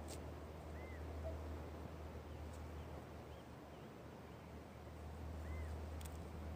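Quiet seaside ambience: a steady low rumble with two short, arched bird chirps, one about a second in and one near the end, and a few faint clicks.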